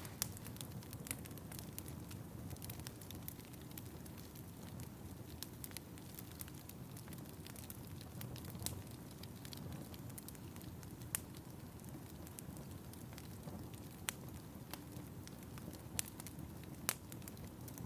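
Fireplace fire crackling: a steady low rumble with many small crackles and a handful of louder, sharp pops scattered through.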